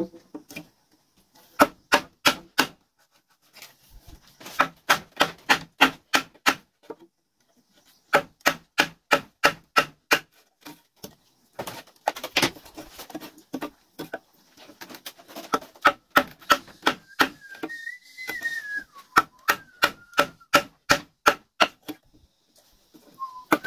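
A cutting tool chopping into a wooden pole: sharp blows about three a second, in runs broken by short pauses.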